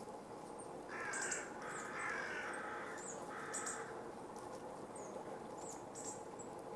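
Three harsh, drawn-out caws from a crow, over a steady low hum and faint, brief high-pitched chirps.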